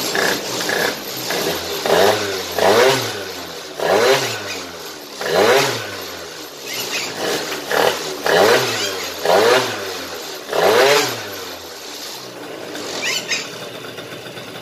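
A freshly rebuilt 49cc two-stroke Yamaha Jog scooter engine being revved by hand in about seven short throttle blips, each rising and falling in pitch. It drops back to a lower steady idle near the end.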